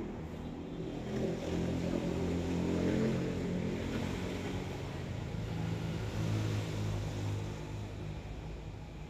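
A passing motor vehicle's engine, a low steady hum that swells, eases, swells again and fades toward the end.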